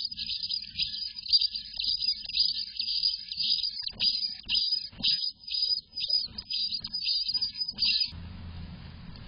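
Eastern bluebird nestlings begging, a dense chorus of rapid high-pitched cheeps while an adult feeds them in the nest box, stopping abruptly about eight seconds in. A few soft knocks come in the second half.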